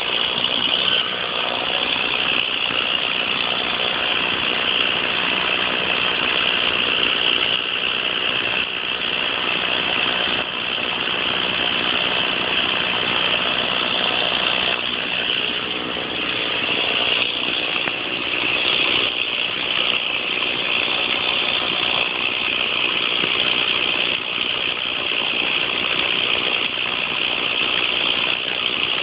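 Stihl chainsaw engine running steadily at an even speed.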